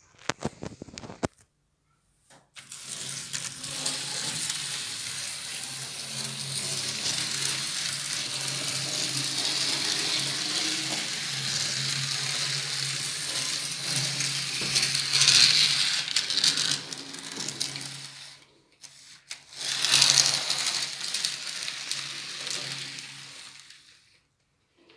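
N-scale model steam locomotive and passenger coaches running on their track: a steady rattle of small wheels over the rails with a low motor hum underneath. It cuts out abruptly after about 18 seconds and comes back briefly a little later.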